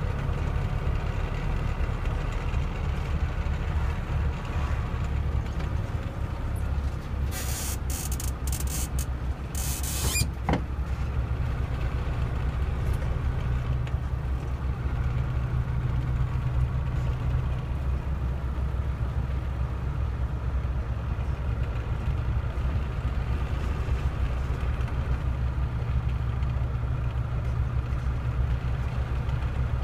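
Steady low engine drone and road noise inside the cab of a moving vehicle. A few short hisses come between about seven and ten seconds in.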